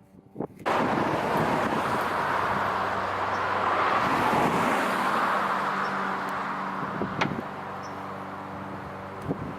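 A passing road vehicle: its noise swells and fades into a steady low hum, with two light clicks near the end.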